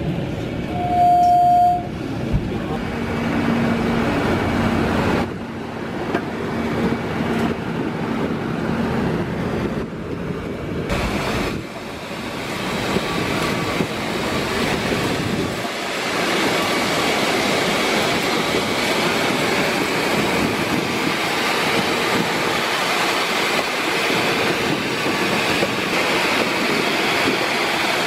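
Steady rumble and hiss of an airport apron around a parked airliner, with a single loud held tone, like a vehicle horn or beep, about a second in. The noise shifts abruptly a few times and grows brighter in the second half.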